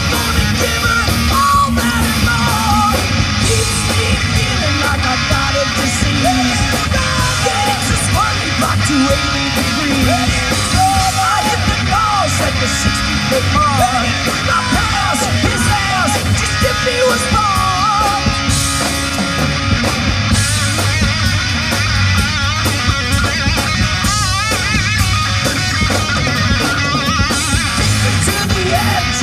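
Live rock band playing loud: bass and drums under a lead guitar whose lines bend and waver in pitch.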